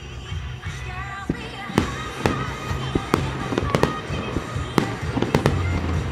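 Fireworks shells bursting in quick succession: about a dozen sharp bangs, the first about a second in, with music playing underneath.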